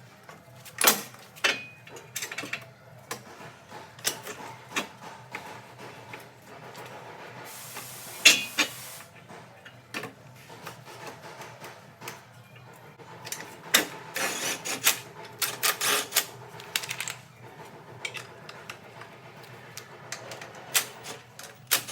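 Irregular clicks, knocks and clatter of hand tools and car body parts being worked on, busiest in the second half, with a brief hiss near the middle.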